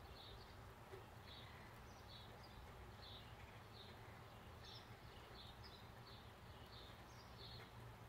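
Faint bird chirping: short high chirps repeated steadily, about two a second, over a low steady background hum.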